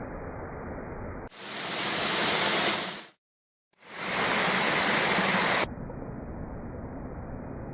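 Small waterfall's rushing water, a steady hiss. Twice in the middle it swells into a louder, fuller rush that fades in and out, with a brief dead gap between the two.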